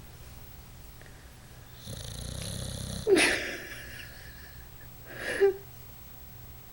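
Sleeping dog snoring: a long raspy snore about two seconds in that ends in a sharp, loud snort, and another short, loud snort after about five seconds.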